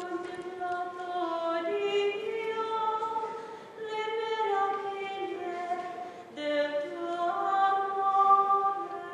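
A nun's solo voice singing a slow, unaccompanied melody of held notes into a microphone, with a short break for breath about six seconds in: the cantor singing the responsorial psalm after the first reading at Mass.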